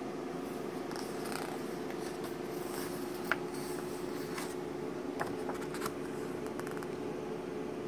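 Glossy yearbook pages being handled and turned by hand: paper rustling with a few sharp ticks, the loudest about three seconds in, over a steady low hum.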